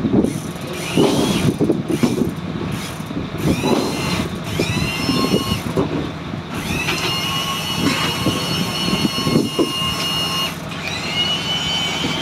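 A winch hoisting frozen fish out of a boat's hold whines several times, each whine rising in pitch as the motor spins up and then holding steady, the longest for about four seconds near the middle. It runs over a steady low hum and the knock and clatter of fish being handled.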